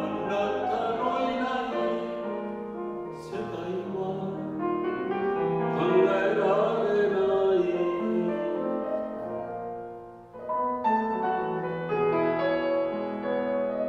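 Male voice singing in a classical style with piano accompaniment, the held notes carrying vibrato. The music dips briefly about ten seconds in, then the piano comes back in with the next phrase.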